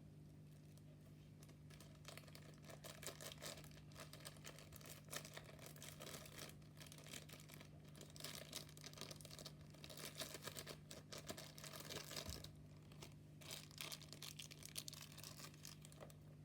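Slime being squeezed and kneaded, giving a dense run of small clicks and pops from about two seconds in until near the end. A faint steady low hum runs underneath.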